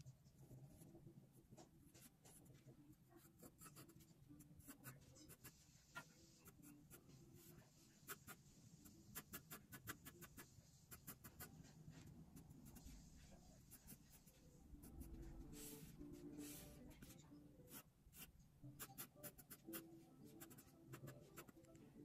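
Graphite pencil sketching on paper: faint scratching of many short, quick strokes, with a denser run of strokes about two-thirds of the way through.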